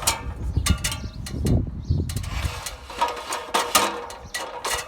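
Ladder being set with its top inside a gutter ladder clamp: a series of knocks and rattles, about eight over the few seconds, some ringing briefly.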